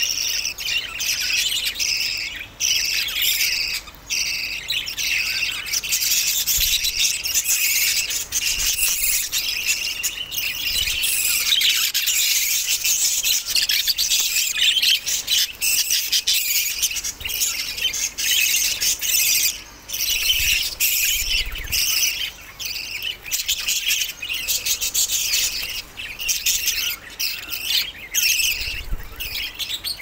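A flock of budgerigars chattering and chirping without a break, a dense high-pitched twittering with the odd squawk.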